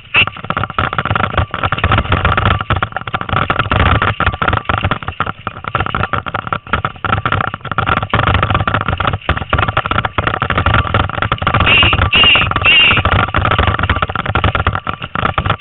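Bicycle towed at speed by a dog team over a bumpy dirt trail: a continuous jolting rattle of the bike and its tyres on the ground.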